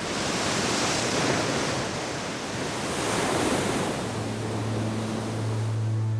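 Sea waves surging and breaking, a rushing noise that swells and ebbs. A low, steady musical drone comes in about two-thirds of the way through.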